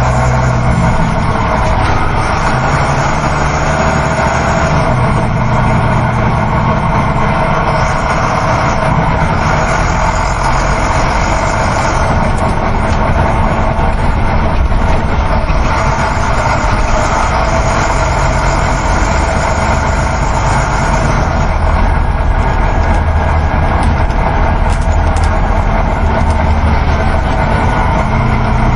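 Coach bus heard from inside the passenger cabin while driving: a steady engine drone under constant road and tyre noise.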